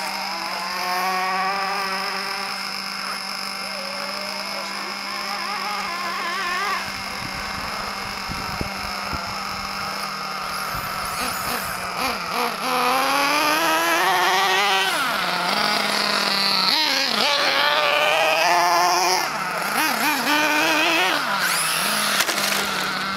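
Radio-controlled car's motor whining, its pitch rising and falling again and again as the throttle is worked, louder from about halfway through.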